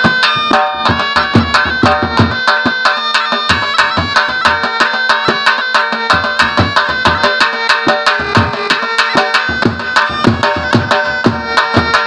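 Sharnai (shehnai, a double-reed oboe) playing a continuous melody over drumming; the low drum strokes drop out for several seconds in the middle and return near the end.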